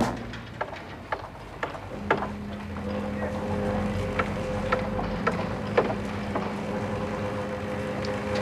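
A steady low hum with two held tones, setting in about two seconds in, dotted with scattered sharp clicks.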